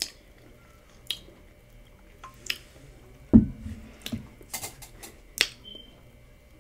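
A soda can set down on a table with one low thump about three and a half seconds in, amid several sharp lip smacks and mouth clicks from tasting the drink.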